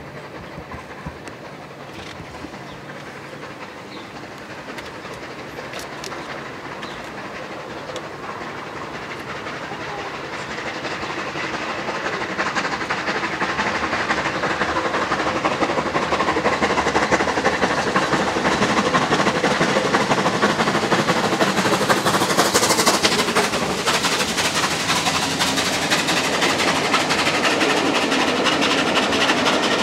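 Bulleid 'Merchant Navy' three-cylinder 4-6-2 steam locomotive 35028 'Clan Line' working hard under load with its train, the sound of the locomotive and the rolling train growing steadily louder as it nears, swelling most between about ten and fourteen seconds in and then holding loud.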